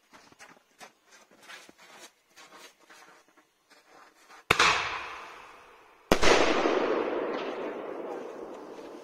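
Two loud firework bangs about a second and a half apart, the second one louder. Each trails off in a long, strong echo. Faint scattered crackles and ticks come before them.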